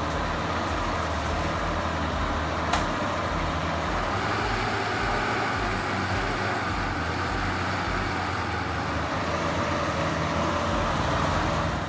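Heavy vehicle's diesel engine running steadily under load, with one sharp click about three seconds in.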